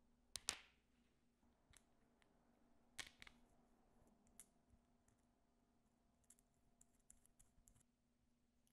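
Faint clicks and taps of small plastic connectors and wires being handled, with a sharp click about half a second in and another about three seconds in, then a run of light clicks near the end.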